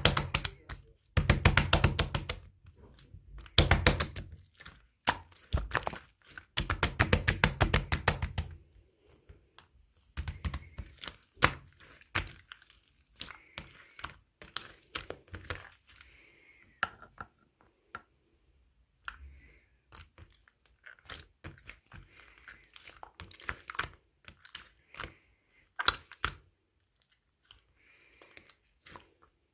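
Clear slime being squeezed and worked by hand, giving rapid runs of crisp clicking and popping for the first eight seconds or so, then sparser pops and soft squelches.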